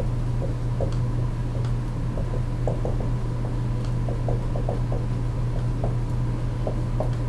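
Steady low hum with a faint thin high tone running under it, and scattered faint irregular ticks and taps from writing.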